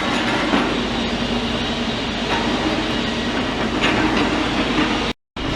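Steady rumble of heavy diesel machinery working on a demolition site, with a faint low hum held throughout. The sound cuts out completely for a moment about five seconds in, where the recording breaks off.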